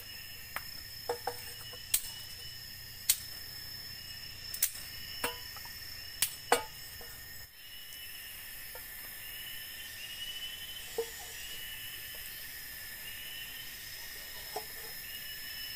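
Campfire of bamboo and sticks crackling with sharp, irregular pops, most of them in the first half, then only a few. Underneath, a steady chorus of forest insects, with short chirps repeating about once a second.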